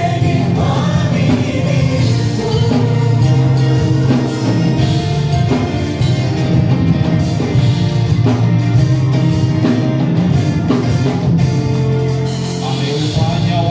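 Live gospel worship music: a band with drum kit playing under singing voices, steady and loud.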